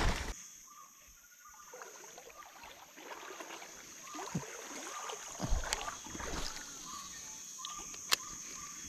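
Quiet outdoor riverside ambience: a steady high-pitched insect drone, faint short chirps, and a few sharp clicks from handling the baitcasting rod and reel.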